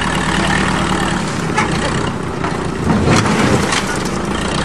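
Heavy engine running steadily, with a few short knocks near the middle.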